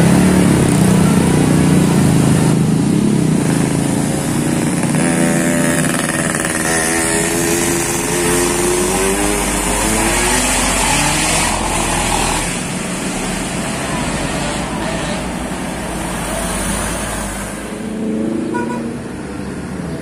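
A string of motorcycles passing close by, followed by a coach bus pulling round the bend, its engine note rising and falling as it works through the turn.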